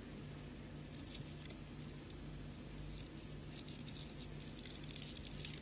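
Faint rustling and light ticking of fishing line being drawn back through beads by hand, heaviest in the second half, over a steady low hum.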